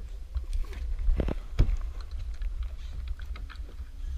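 Wind rumbling on the microphone, with scattered irregular clicks and knocks.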